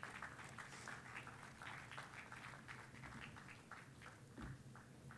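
Faint scattered applause from an audience, a few irregular claps a second over the hall's low hum.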